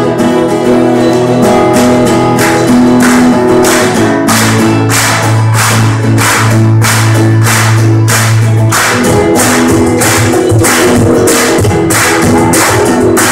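Acoustic band playing live: strummed acoustic guitar over a steady cajon beat of about two strikes a second.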